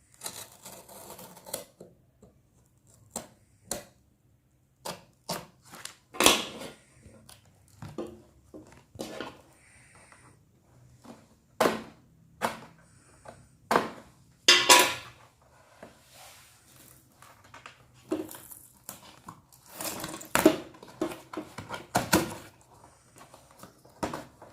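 A cardboard box being opened and its packing handled by hand: irregular knocks, taps and scrapes, with short stretches of rustling.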